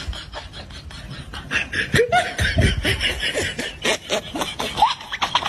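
Person laughing in short, rapid snickers that grow louder about one and a half seconds in.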